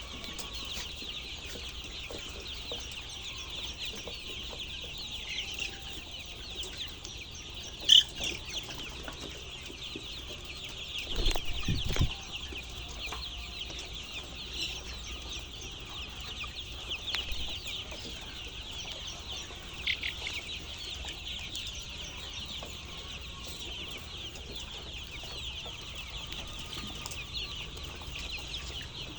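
A flock of chickens calling continuously, many high, overlapping calls at once. A sharp knock comes about eight seconds in, and a brief low rumble follows a few seconds later.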